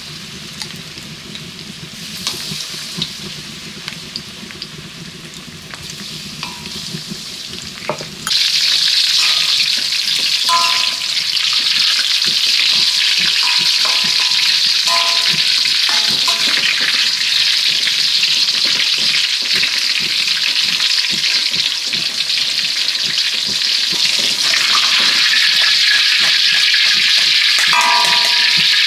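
Batter-coated sponge gourd slices deep-frying in hot oil in an aluminium wok: a steady sizzle that turns much louder about eight seconds in. A metal spatula clinks against the wok now and then as the fritters are turned and lifted out.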